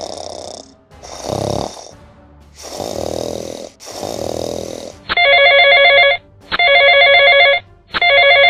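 A series of breathy puffs about a second apart, then a telephone rings three times. Each ring lasts about a second and has a fast trill, and the rings are the loudest part.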